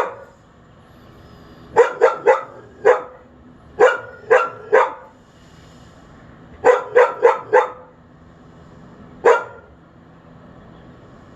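A dog left outside on its own barking over and over in short clusters of one to four sharp barks, with pauses between the clusters.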